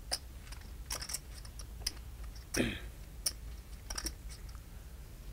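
Poker chips clicking now and then as players handle their stacks, over a low steady hum.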